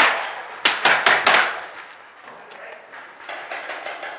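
Paintball fire: three sharp, loud cracks in quick succession about a second in, echoing in a plywood bunker, then fainter scattered taps.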